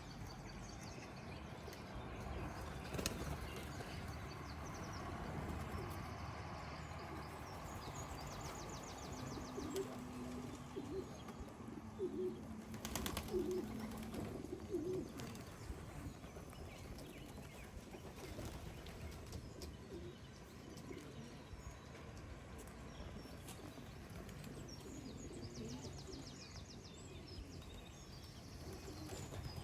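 Racing pigeons at the loft: wings flapping and low cooing, strongest a third of the way through, with a couple of sharp claps. Small birds chirp in short high trills.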